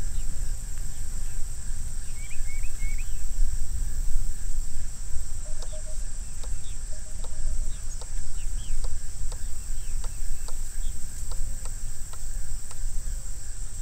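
Riflescope windage turret (Vortex HST 4-16) clicking as it is dialed over, a run of faint sharp clicks about two a second through the second half. Under it, wind rumbles steadily on the microphone and insects drone high, with a few brief bird chirps about two seconds in.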